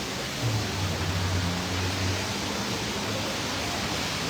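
Steady hiss of rain falling on an umbrella and the wet street. About half a second in a low steady hum comes up and fades out after about two seconds.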